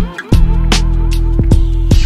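Background music with a steady beat and held bass notes, drum hits about twice a second, dropping out briefly just after the start.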